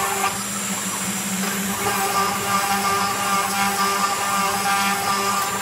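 Homemade CNC router running, its spindle giving a steady whine while the bit mills a part out of a board.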